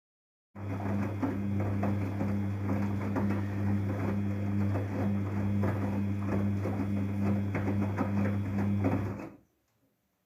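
Daewoo DWD-FT1013 washing machine's air-bubble pump running with a steady low hum and fine crackling of bubbles in the water, stopping abruptly near the end.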